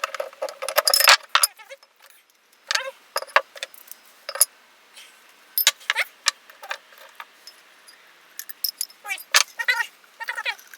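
Metal parts of a vintage vise clinking and clanking against each other in irregular bursts as the vise is taken apart by hand, some knocks leaving a short metallic ring.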